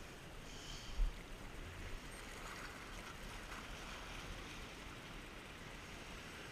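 Sea water washing and fizzing over rocks in a steady rush, with a short low thump about a second in.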